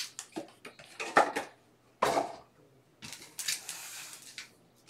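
Foil-wrapped trading card packs being handled and shuffled together, their wrappers crinkling and clacking against each other. A few sharp crinkles in the first two seconds, a short pause, then a longer run of rustling as the stack of packs is shuffled between two hands.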